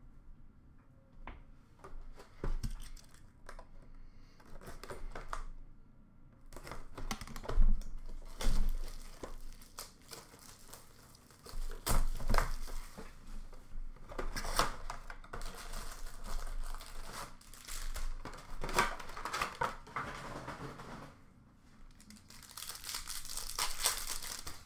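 Plastic wrapping on sealed hockey card boxes and packs crinkling and tearing as they are opened by hand, in repeated bursts with light clicks and knocks of cardboard. A longer stretch of crinkling comes near the end.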